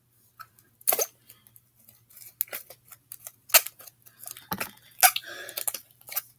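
Spatula scraping and knocking against a bowl as leftover slime is scraped off: scattered short scrapes and clicks, with a low steady hum underneath.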